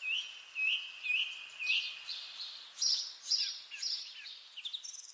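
Garden birdsong at early evening: a songbird singing short whistled phrases, each repeated about three times in a row, over a faint steady background hum.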